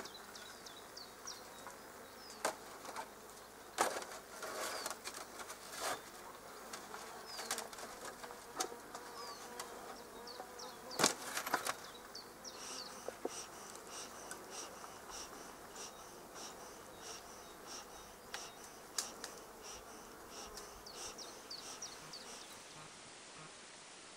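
Honeybee swarm buzzing in a tree around its clustered swarm, a steady hum. Several sharp knocks and clicks stand out above it, the loudest about 4 and 11 seconds in.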